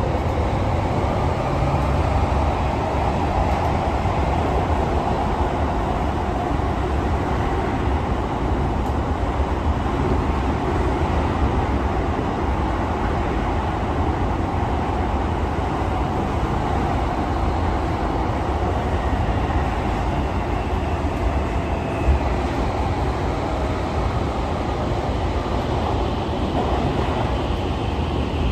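Running noise of a Tokyo Metro 17000 series electric train heard inside a passenger car in a tunnel: a steady, loud rumble of wheels on rail. There is a single short knock about three quarters of the way through.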